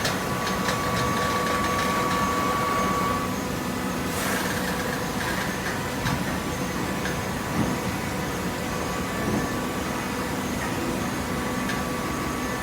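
Hydraulic waste-paper baler running with a steady machine hum. A higher whine drops out about three seconds in and comes back near the end, and there is a brief rushing noise about four seconds in.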